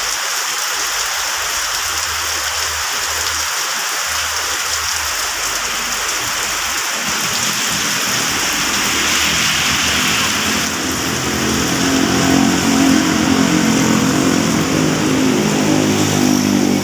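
Heavy rain pouring down steadily. About eleven seconds in, a motorcycle engine rises through the rain and grows louder as the bike passes near the end.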